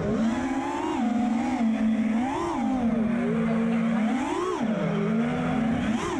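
FPV freestyle quadcopter's brushless motors and propellers whining, the pitch swooping up and back down several times as the throttle is punched and eased through the tricks.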